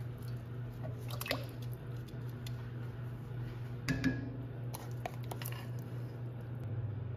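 Wet kitchen handling sounds: raw pork being squished into a pot of rice water about a second in, then a wooden spoon knocking and scraping thick seasoning paste in a ceramic bowl around four seconds in, the loudest moment. A steady low hum runs underneath.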